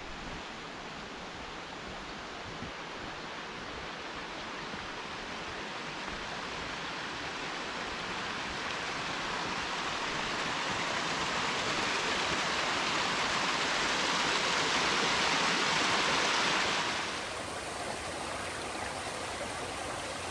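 Rushing mountain creek: a steady hiss of flowing water that grows gradually louder, then falls off suddenly to a quieter rush near the end.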